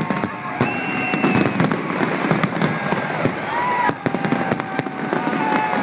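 A fireworks display: a rapid, continuous run of bangs and crackles from bursting shells, with drawn-out whistle-like tones sounding over them.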